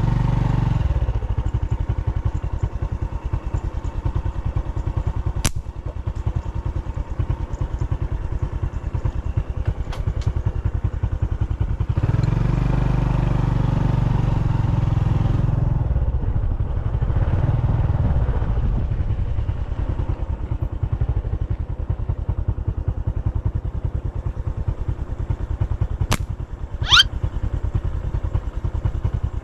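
Small motorcycle engine running while riding along a rough dirt track, swelling as it speeds up about halfway through. A couple of sharp clicks near the end.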